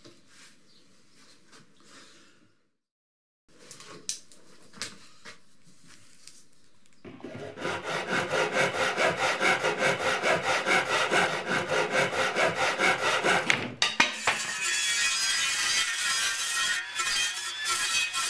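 Rapid, even rasping strokes on plywood, about five a second, from hand work on the wood. About two-thirds of the way through the strokes stop and music takes over.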